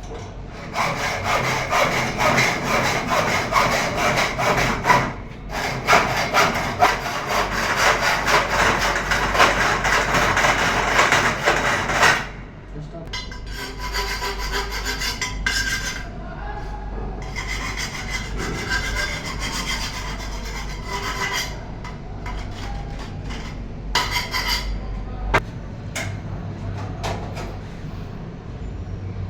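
Harsh rasping, sawing-like scraping of tool work, loud for about twelve seconds, then quieter and broken up, with a few sharp knocks near the end.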